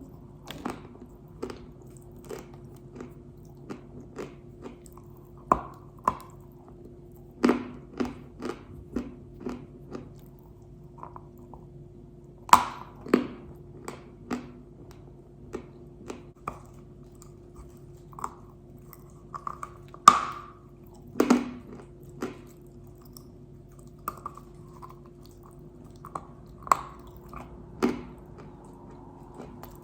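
Close-up biting and crunching of pink Uzbek edible clay, with irregular crisp cracks and several louder bites, over a faint steady hum.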